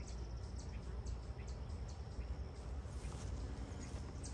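Outdoor background noise: a steady low rumble with scattered faint, short high ticks.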